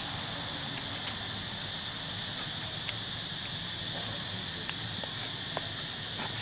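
Steady high-pitched insect drone, with a few faint scattered clicks.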